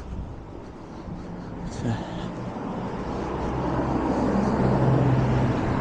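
A road vehicle approaching on a street, its engine and tyre noise growing steadily louder, with a low engine hum most prominent near the end.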